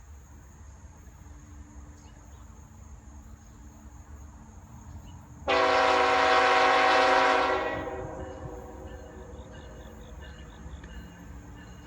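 Diesel freight locomotive's air horn sounding one long chord-like blast of about two seconds, starting suddenly about five and a half seconds in and fading away over the next second.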